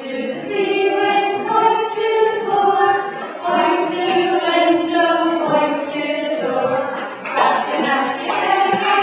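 A choir singing slow, sustained notes, with a new phrase starting about seven seconds in.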